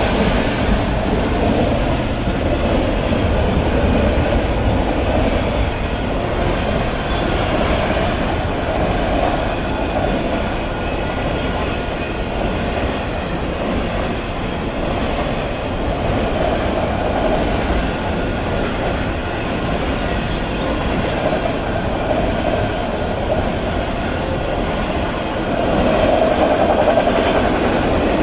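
Freight train of autorack cars rolling past: a steady, loud rumble of steel wheels on the rails that goes on without a break and swells slightly near the end.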